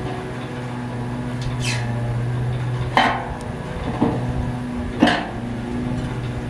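Metal parts of a refrigerator evaporator being fitted together by hand: a short squeak, then three sharp metal clicks about a second apart as the fitting is seated, over a steady low hum.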